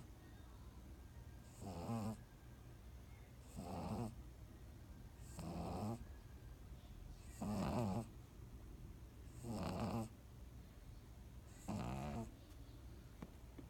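A pug snoring while asleep: six snores, each about half a second long, coming regularly about every two seconds.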